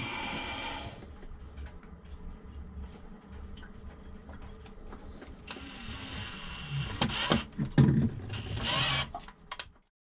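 Hands working down in a sailboat's deep bilge: scraping and rustling with scattered knocks against the hull, the loudest knocks about seven to eight seconds in, over a low rumble.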